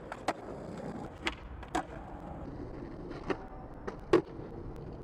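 Skateboard rolling over pavement with a steady rumble of the wheels, broken by several sharp clacks of the board; the loudest clack comes a little after four seconds in.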